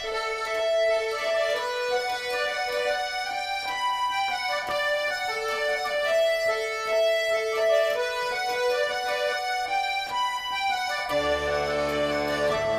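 Background music: a melody of long held notes, with lower notes joining in near the end.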